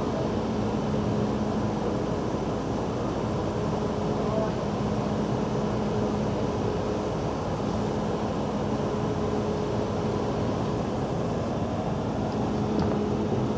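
The paddle-wheel cruise ship Michigan under way, heard from its open deck: a steady low machinery hum with a few constant tones over an even wash of noise.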